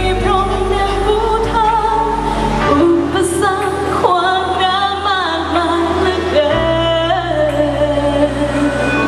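Pop song in a sound-check run-through: a woman's voice sings a wavering melody over held bass notes, which change about a third of the way in and again about three-quarters through.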